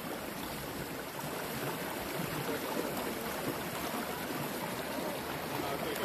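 Shallow stream running steadily over and around rocks, a continuous even rush of water.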